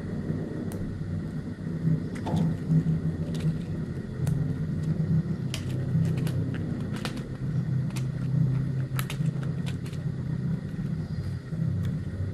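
A steady low rumble, with scattered light clicks and taps as cardboard matchboxes bound with rubber bands are handled and set down on a tiled floor.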